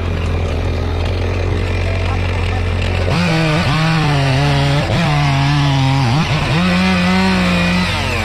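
Two-stroke chainsaw cutting. After a steady low hum, the saw opens up about three seconds in, its pitch sagging and recovering several times as it bogs in the wood, then holds high and drops off near the end.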